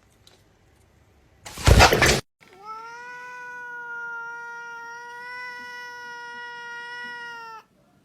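A brief loud noisy burst, then a cat's single long yowl held at a steady pitch for about five seconds, cutting off abruptly near the end.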